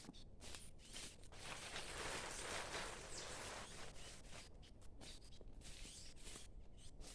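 Irregular rustling and footsteps on forest leaf litter, coming in uneven patches with short pauses.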